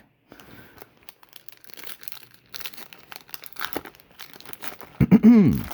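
A baseball card pack's wrapper being torn open and crinkled, with irregular crackling. Near the end comes a brief wordless vocal sound that rises then falls in pitch, the loudest sound of all.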